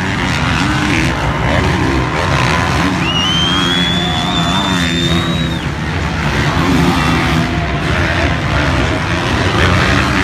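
Motocross dirt bikes racing, several engines revving up and down as they pass. Starting about three seconds in, a thin high tone rises slightly and holds for about two and a half seconds.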